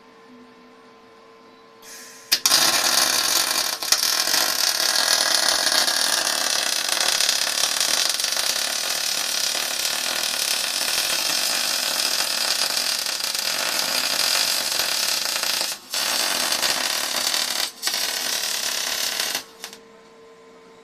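MIG welding arc crackling steadily as a bead is laid. It strikes about two seconds in, breaks off for an instant three times, and stops just before the end.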